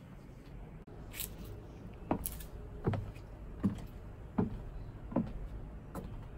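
High-heeled shoes stepping across wooden deck boards: slow, even steps about three-quarters of a second apart, each a short knock that drops quickly in pitch, starting about two seconds in.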